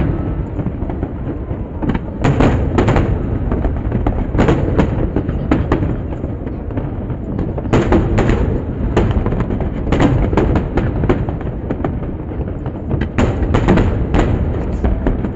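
Fireworks display: aerial shells bursting in rapid clusters of bangs and crackles every second or two, over a continuous low rumble.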